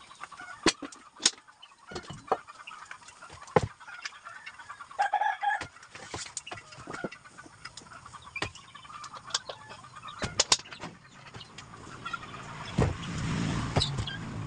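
Chickens clucking, with one short, louder chicken call about five seconds in, among sharp knocks and clatter of metal pots and dishes being handled. Near the end a louder rushing, scraping noise as a cooking pot is tipped out onto a plate.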